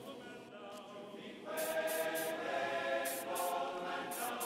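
Background music of choral singing, voices holding chords, swelling louder about a second and a half in.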